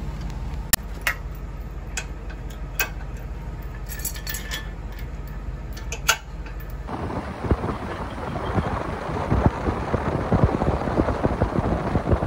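Sharp metallic clinks of a trailer coupler being latched onto a hitch ball and its safety chains being handled, over a steady low rumble. About seven seconds in this gives way to a loud wind and road rush from a vehicle moving at speed with a boat trailer in tow, with gusts buffeting the microphone.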